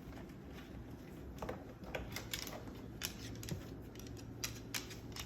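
Irregular sharp clicks and taps, a few each second, starting about a second and a half in, over a faint steady hum.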